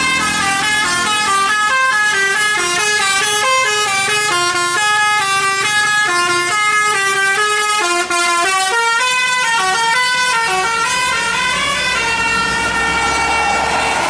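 Telolet musical air horn on a tour bus playing a quick tune of short stepped notes, then holding a steady chord for the last couple of seconds.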